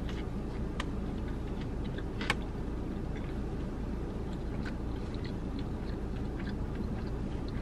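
A person chewing a mouthful of fried chicken sandwich: scattered small wet mouth clicks, one sharper click about two seconds in, over a steady low hum inside a car cabin.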